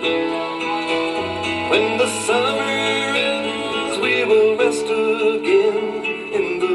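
Country-folk music with acoustic guitar and plucked strings between sung lines, played back from a 7-inch clear Lexan disc cut at 33 rpm on a Presto 6N record lathe.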